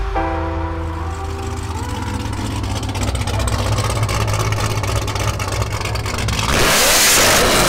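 A car engine running and accelerating, building to a loud rush that is loudest about seven seconds in.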